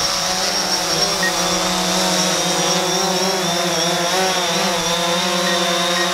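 DJI Phantom 4 Pro quadcopter's motors and propellers whirring steadily in flight, the pitch wavering slightly as the motors adjust.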